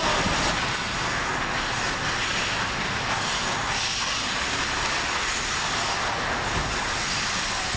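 Steady rushing noise of an indoor ice rink during a hockey game, with skate blades scraping the ice.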